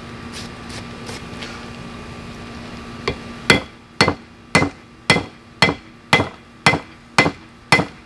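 Hand hammer striking a glowing piece of steel held in tongs on an anvil, setting a forge weld. The blows start about three seconds in and come evenly, about two a second.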